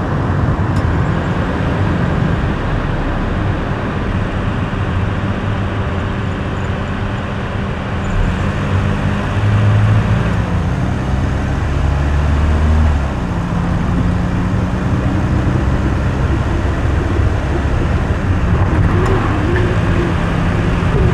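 A car driving on a road: steady road and tyre noise under a low engine hum that shifts up and down in pitch a few times around the middle.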